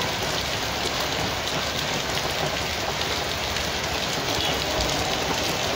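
Heavy rain pouring down and splashing on a flooded street: a steady, even hiss of falling drops.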